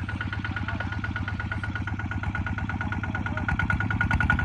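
Kubota two-wheel walking tractor's single-cylinder diesel engine running with a rapid, even beat as it pulls a trailer through sand, with a steady high whine alongside; it grows a little louder near the end.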